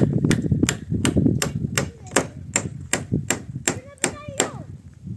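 Hammer nailing wooden roof boards: steady, evenly spaced strikes about three a second, about a dozen in all, stopping near the end.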